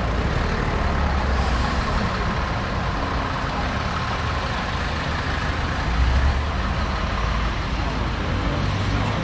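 Road traffic: car and lorry engines running in slow, queued traffic, with a low rumble that swells near the start and again about six seconds in.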